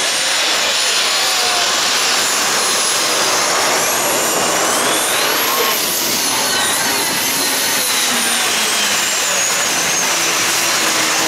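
Modified pulling tractor's twin turbine engines running at full power under load while dragging the weight sled: a loud, steady jet-like rush with a high whine that rises around the middle and falls away near the end.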